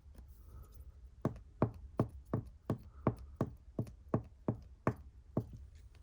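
Light knocking on a hard surface: about a dozen even taps, roughly three a second, starting about a second in and stopping before the end.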